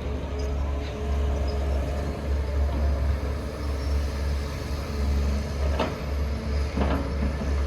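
Heavy diesel engine running with a steady low rumble, with two short metallic knocks about six and seven seconds in.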